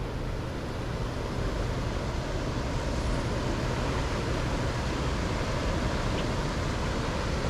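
Steady rushing noise of wind and water around an open boat, growing slightly louder about a second and a half in.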